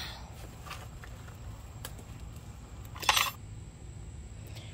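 A few faint clicks and taps of tool handling against the hollow plastic body of a ride-on toy car, with one short, louder rattling burst about three seconds in.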